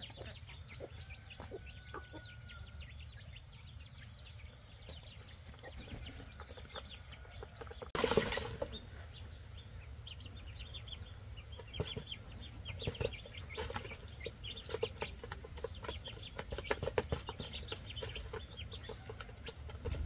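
Farmyard fowl clucking in a scatter of short calls over a steady low hum, with one louder burst about eight seconds in.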